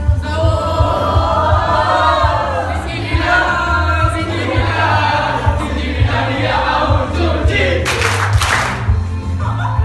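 Pop-style dance music with a pulsing bass beat and a sung vocal line, to which the group dances. About eight seconds in, a brief loud burst of noise cuts across it.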